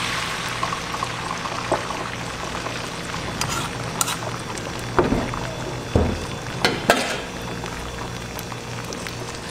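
Beaten egg with chopped vegetables sizzling in hot oil on an electric griddle. The sizzle is loudest at first, while the mixture is being poured, then settles to a quieter frying hiss. A few sharp clacks come in the middle.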